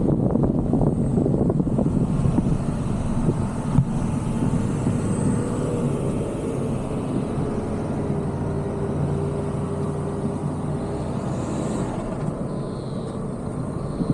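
Car driving slowly over a rutted dirt road, heard from a roof-mounted camera: a steady low rumble of tyres, engine and wind, with a single knock about four seconds in.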